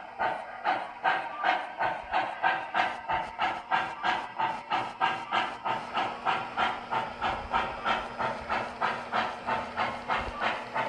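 MTH Protosound 3 digital steam sound in a G-scale USA Trains Docsider 0-6-0 locomotive, playing a steady steam chuff through the model's speaker at about three to four chuffs a second.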